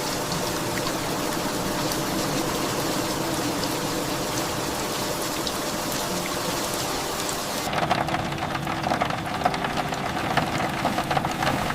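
Heavy rain falling, a steady even hiss. About eight seconds in, it gives way to a denser crackling sound made of many small ticks.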